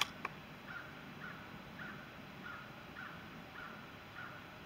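A bird calling in a faint, evenly spaced series of short calls, a little under two a second. A sharp click comes right at the start.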